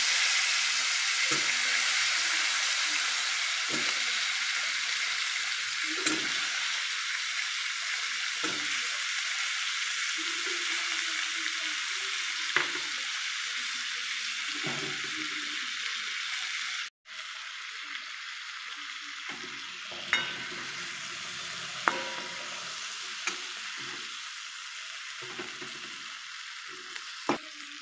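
Diced potato sizzling as it fries in oil with onion-tomato masala in a metal kadhai. A metal ladle stirs it, with a few sharp taps and scrapes against the pan. The sizzle is loudest at first and slowly eases off.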